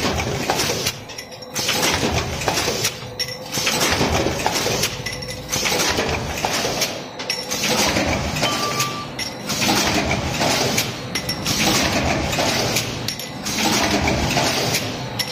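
Transfer stamping press line running automatically: metal clinking and clattering from the dies and transferred parts, in a cycle that repeats about every two seconds.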